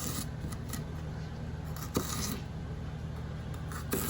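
An onion being peeled and cut with a knife on a cutting board: a few sharp knocks, the loudest about two seconds in, with papery rustling and scraping between them, over a steady low hum.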